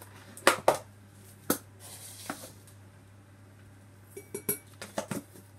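Metal teaspoons clinking and tapping against glass jars and plastic tubs while dye chemicals are measured out: a few sharp clinks, the loudest about half a second in, then a quick run of them near the end.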